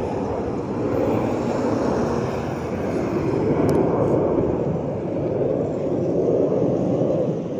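Jet plane flying over: a continuous jet engine rumble that swells and eases a few times.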